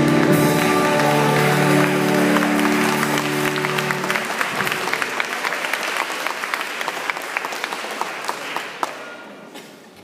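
A sustained final chord of music ends about four seconds in while a congregation applauds; the clapping thins out and dies away near the end.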